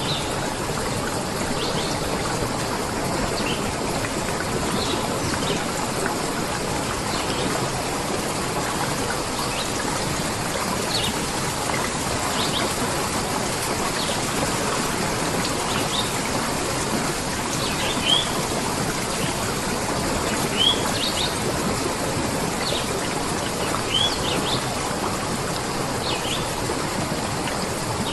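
Steady rush of running water with short, high bird chirps every second or so over it, a few of them louder in the second half.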